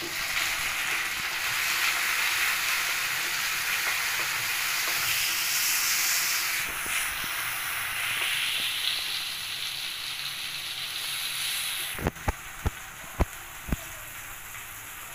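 Capsicum and onion sizzling hard in hot oil in a wok, with soy sauce just added, while a wooden spatula stirs them. Near the end the sizzle eases off and the spatula knocks against the wok five or six times.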